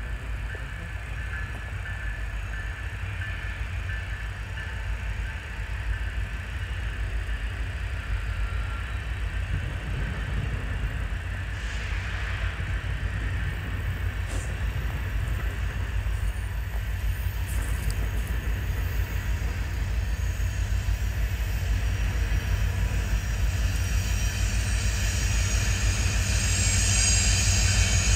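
Freight train rolling by, a steady low rumble that grows louder toward the end.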